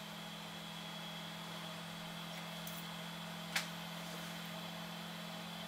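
Steady hum of the briefcase 3D printer's electronics cooling fans running while the machine sits idle, heating up. One sharp click about three and a half seconds in.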